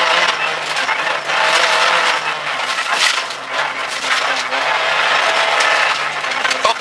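Rally car driven hard on a gravel stage, heard from inside the cabin: the engine runs steadily under load while loose gravel and stones clatter and crackle against the underbody and wheel arches, with many sharp stone hits.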